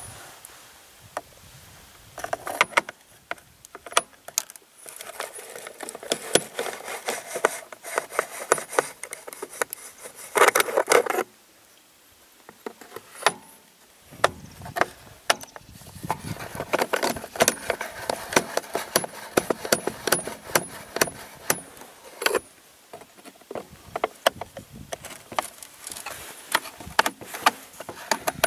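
A screwdriver turning out the screws of a chainsaw's plastic top cover, with irregular metal clicks, rattles and scraping as the tool and cover are handled. There is a louder spell of scraping about ten seconds in and a brief pause just after it.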